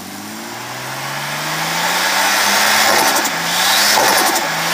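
Holden VL Commodore Turbo's RB30 turbocharged straight-six revving, its pitch rising steadily as it gets louder. Around three to four seconds in a rapid fluttering chatter breaks in, the turbo flutter heard as the throttle snaps shut, and the revs dip briefly near the end before climbing again.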